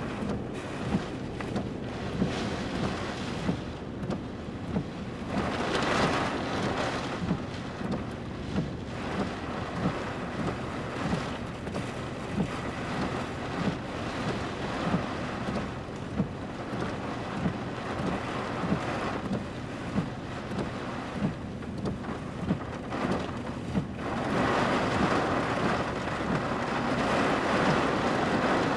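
Wind-driven rain from a passing squall line, gusting harder about five seconds in and again for the last few seconds, with soft regular knocks about once a second.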